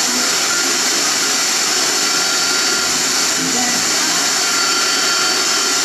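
Radio static from the Crown CSC-950L's tuner: a steady hiss between stations, with faint traces of a broadcast voice in it, as the band is being tuned.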